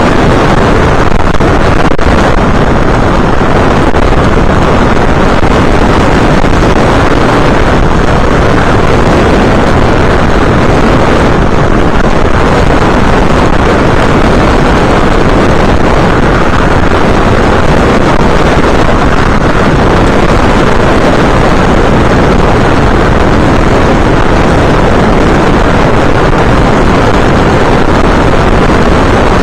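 Steady, loud rush of wind and motor noise on the onboard camera's microphone of an FPV aircraft in flight.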